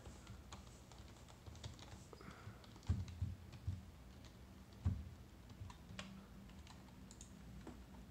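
Faint typing on a computer keyboard while a Wi-Fi password is entered: scattered key clicks, with a couple of heavier knocks about three and five seconds in.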